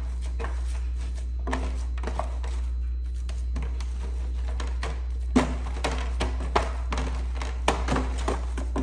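Hands kneading ground-beef meatloaf mix in a disposable aluminium foil pan: squishing meat and the thin foil pan flexing, with a few sharp crackles in the second half. Background music plays throughout.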